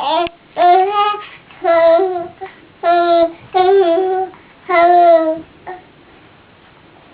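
Baby cooing: a string of about six drawn-out, high-pitched vowel sounds, some bending up and down in pitch.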